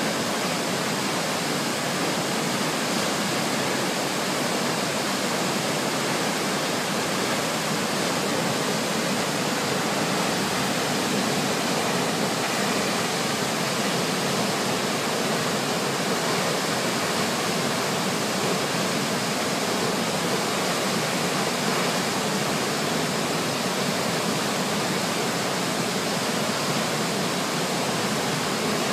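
Waterfall in flood, a heavy volume of water falling down a rock cliff with a steady rushing noise.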